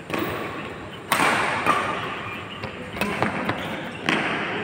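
A few sharp knocks and thuds, the loudest a little over a second in, each trailing off in the echo of a large hall.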